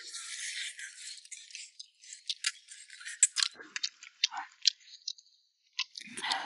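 Eating at a table: irregular sharp clicks of utensils against dishes mixed with soft chewing and rustling, with a short quiet gap near the end.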